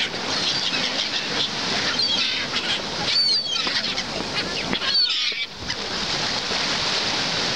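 Gulls squawking over a feeding flock, several harsh wavering calls standing out about two, three and five seconds in, over the steady wash of small waves breaking against concrete sea steps.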